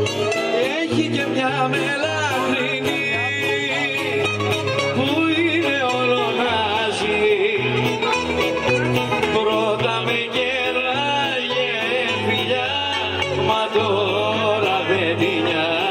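Greek folk dance music with singing and string instruments over a stepping bass line, played for a circle dance at a village festival.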